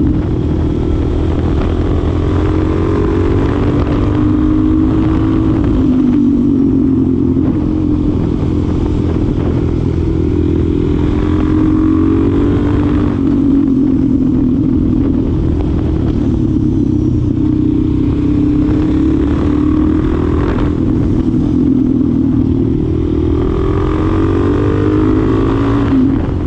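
2025 Suzuki DR-Z4SM supermoto's single-cylinder engine running, its pitch climbing and dropping back several times as the throttle is opened and closed, over a steady low rumble.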